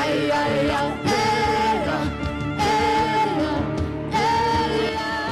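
Music with a singing voice holding long notes over steady instrumental backing, with a new sung phrase starting every second or so.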